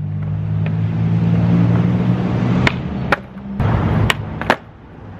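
Skateboard wheels rolling on concrete with a steady rumble. In the second half come four sharp clacks as the board's tail is popped for a flip trick and the board lands.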